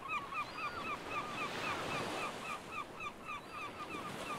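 A gull calls in a quick series of short, hooked calls, about three a second and spacing out toward the end, over a steady hiss of surf.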